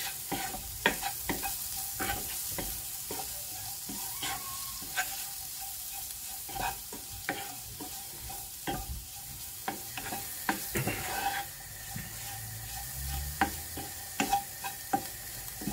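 Onion and spice mixture frying and sizzling in a non-stick pan while a spatula stirs it, with irregular scrapes and taps of the spatula against the pan throughout.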